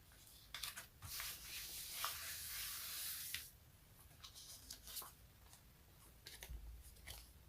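Something sticky being peeled apart close to the microphone: a long crackling peel lasting about two seconds, followed by several short sticky clicks and crackles.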